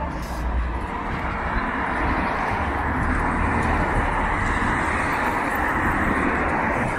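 Steady road traffic noise from cars driving past: an unbroken hiss of tyres with a low engine rumble, swelling slightly a couple of seconds in.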